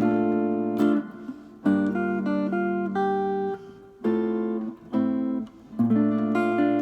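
Solo guitar playing a chord-melody passage: about five chords struck one after another, each with the melody note on top, left to ring and fade before the next.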